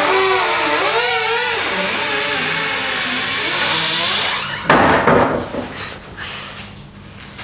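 Wardrobe door creaking open slowly in a long, wavering creak, then a sudden loud thump about four and a half seconds in.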